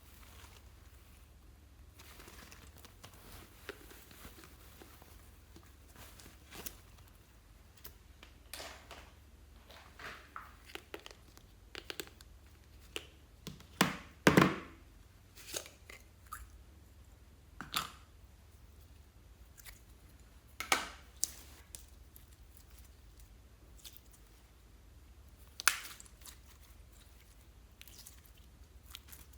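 Slime being squished and worked by hand: irregular short sticky crackles and pops. The loudest cluster comes about halfway through.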